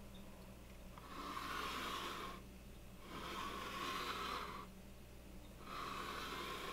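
Slow, heavy breathing, three drawn-out breaths about two seconds apart, over a steady low hum.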